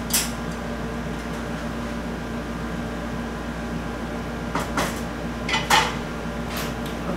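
A utensil clinking against a metal pot while salted water is stirred: one clink just after the start, then a handful of clinks and scrapes between about four and a half and six and a half seconds in. A steady hum sits under them throughout.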